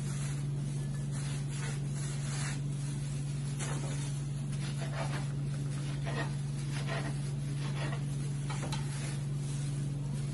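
Knife cutting and scraping vegetables on a plastic cutting board, in irregular soft strokes about once a second, over a steady low hum.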